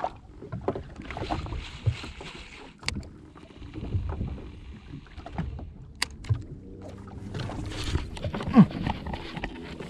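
Water splashing and lapping around a jet ski, with scattered knocks and a few sharp clicks.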